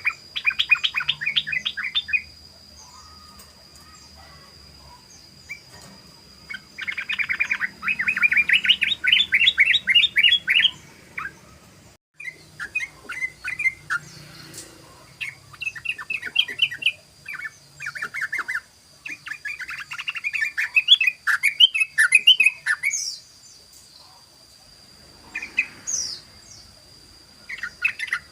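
Yellow-vented bulbul (trucukan) singing in rapid chattering runs, the fast-repeated 'ropel' song: several bursts of a few seconds each, separated by short pauses. A faint steady high-pitched tone runs underneath.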